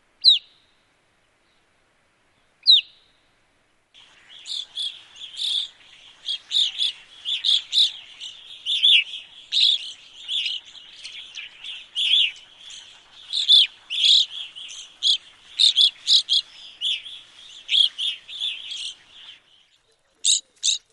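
Evening grosbeaks calling. Two single sharp, falling call notes come a couple of seconds apart; then, from about four seconds in, a flock calls together in a dense, unbroken run of chirps for some fifteen seconds, and a few lone calls follow near the end.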